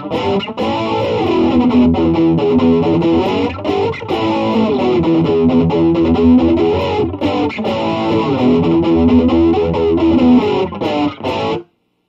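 Electric guitar chords played through an A/DA Flanger (2009 reissue) pedal, the flanger sweeping slowly up and down over the notes with a repeating whooshing jet sweep. The sound cuts off suddenly near the end.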